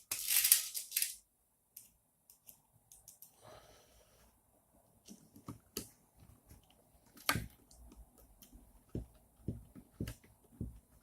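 Small screws and nuts clicking and tapping against the acrylic frame plates of an Anet A8 kit as they are handled and fitted by hand: irregular light clicks, one sharper about seven seconds in. A short burst of rustling opens it.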